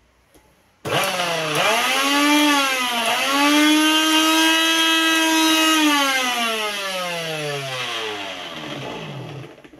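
Preethi Crown 500-watt mixer grinder running with its small chutney jar fitted. The motor starts about a second in with a high whine that rises in pitch and dips twice, then runs steadily. It is then switched off and winds down, its pitch falling over about four seconds.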